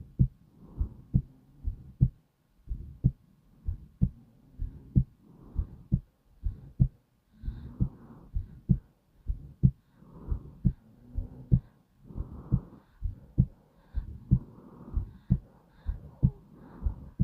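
Slow, steady heartbeat: low thumps evenly spaced, about one and a half a second, with a faint hiss between beats.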